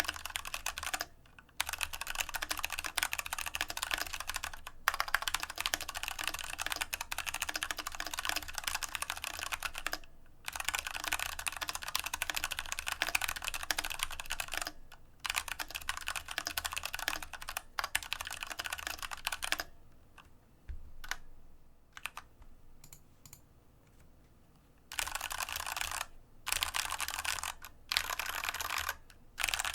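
Fast typing on an IQUNIX F96 mechanical keyboard with Cherry MX Brown switches on a deskmat: dense runs of key clacks broken by short pauses, with a sparser stretch of a few single key presses about two-thirds of the way through.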